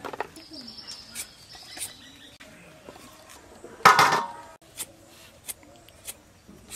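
A blade chops into bottle gourd on a wooden block at the start. About four seconds in, a stainless steel plate clatters and rings as peeled potatoes are set down in it; this is the loudest sound. A few light clicks follow as a knife peels a potato.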